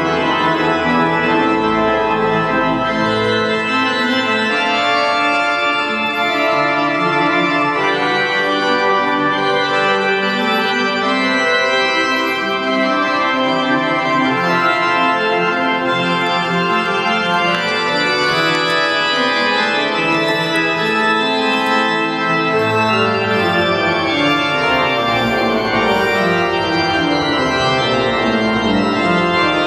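Pipe organ playing slow, sustained chords, with deeper bass notes joining about two-thirds of the way through.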